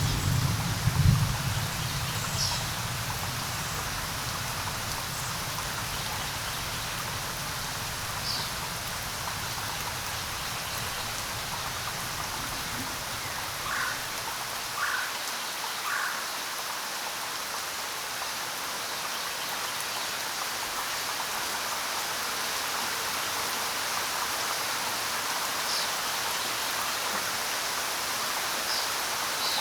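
Steady rain falling. A low rumble of thunder dies away in the first second or two, and a few short high chirps come through the rain.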